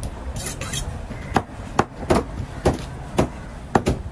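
A heavy curved knife chopping yellowfin tuna flesh into chunks on a wet wooden board. From about a second in it makes sharp chops roughly every half second, about seven in all.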